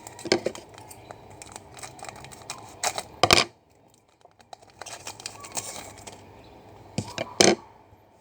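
Trading card packs being opened and the cards flicked through: pack wrappers crinkling and tearing and card stock clicking and sliding, with louder rustles about three seconds in and near the end.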